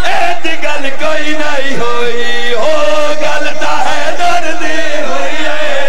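A man's voice chanting a devotional recitation in long, drawn-out melodic notes, amplified through a microphone and loudspeakers.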